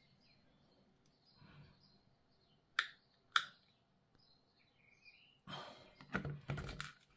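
Two sharp clicks about half a second apart as small plastic model-kit parts are handled and pressed together. Near the end comes a short flurry of knocks and rustling as parts and tools are moved about on a cutting mat.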